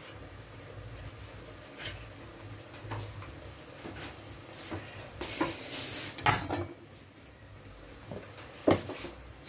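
Scattered knocks and clatters of kitchen handling: a knife working on a wooden chopping board as tilapia are scored, and fish being set down on a plate, over a low steady hum. The loudest knocks come about six seconds in and again near the end.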